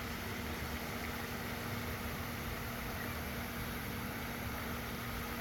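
Steady low motor hum with a noisy rumble beneath it, unchanging throughout.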